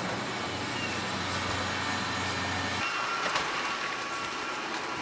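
Steady running noise of a vehicle in motion, with a low hum that drops away about three seconds in.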